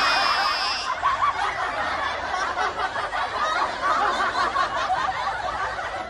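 Laughter, a stretch of snickering and chuckling, with a high squeal over it in the first second; it cuts off suddenly just after the end.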